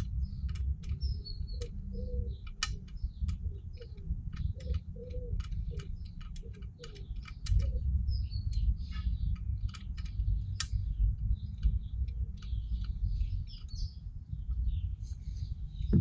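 Small birds chirping and twittering, with many light, irregular metal clicks from bicycle spokes being handled while a hub-motor wheel is laced, over a steady low rumble.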